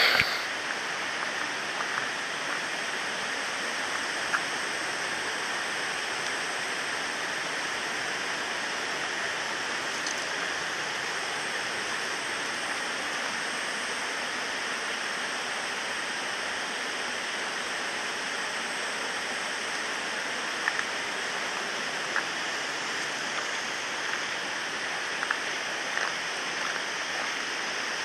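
Waterfall: a steady, even rush of falling water, with a few faint clicks over it.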